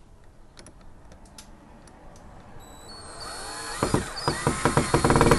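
Power drill driving a screw to fasten a door latch: a few light handling clicks, then the motor whine rises in pitch from about halfway and is loudest near the end as the screw drives in.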